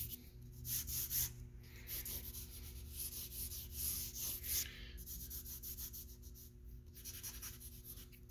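Vine charcoal scratching across drawing paper in a run of short, uneven shading strokes.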